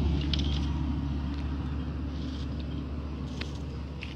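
A steady low rumble that slowly fades, with a few light clicks and rustles over it.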